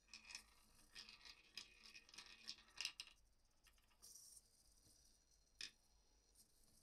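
Faint clicking and whirring of a small 3D-printed robot arm moving on its SG90 micro servos. A run of small clicks and rattles fills the first three seconds, a short high hiss comes about four seconds in, and one sharp click follows a little later.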